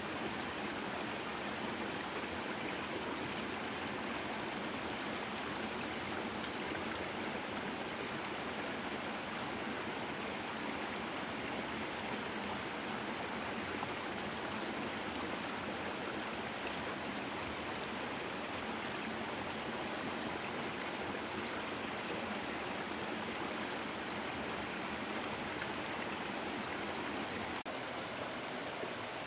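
Steady rushing of flowing stream water, with a brief dip near the end.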